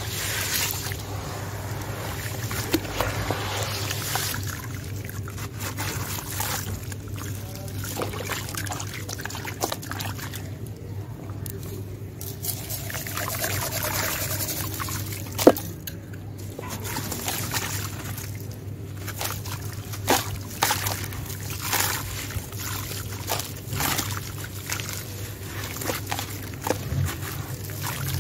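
Hands sloshing and squelching through watery sand-cement slurry in a plastic basin, crumbling soft sand-cement chunks, with trickling, pouring and scattered sharp crackles; one loud crack about halfway through. A low steady hum runs underneath.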